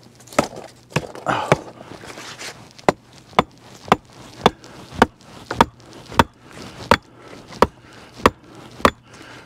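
Repeated sharp knocks of a wooden stick being pounded down into a clay bank, about two strikes a second, with some rustling and splashing in the first couple of seconds.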